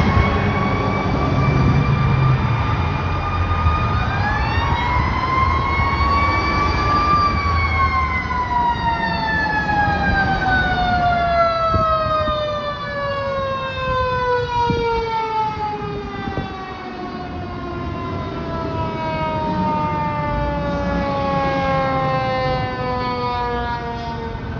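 Fire apparatus responding with a mechanical Q siren. Its pitch winds up again about four seconds in, then slowly coasts down for most of the rest, over a second siren tone and a low rumble.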